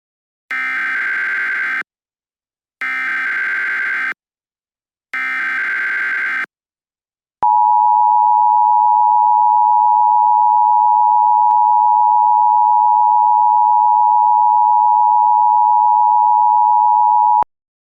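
Emergency Alert System SAME header: three short bursts of digital data tones, each a little over a second long. These are followed by the EAS two-tone attention signal (853 and 960 Hz), held steady for about ten seconds, which announces an emergency alert.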